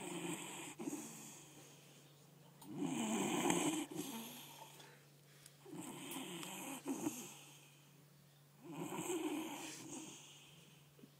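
A sleeper snoring in a slow, even rhythm: four long snores about three seconds apart, over a steady low hum.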